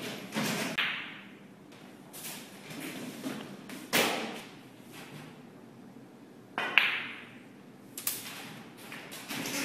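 Snooker cue and balls being struck: a handful of sharp, separate clicks and knocks of cue tip on ball and ball on ball, each with a short ringing tail. The loudest come about four seconds in and just before seven seconds.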